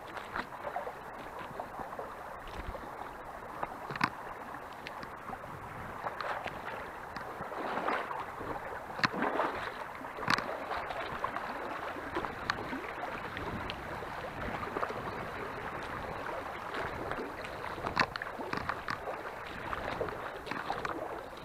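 Shallow river running and gurgling over stones. Scattered clicks, knocks and splashes sound through it as someone wades over the stony riverbed.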